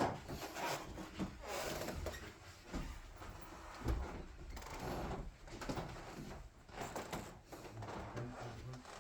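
Wooden floorboards creaking over and over under footsteps, the wood flexing as it is walked on.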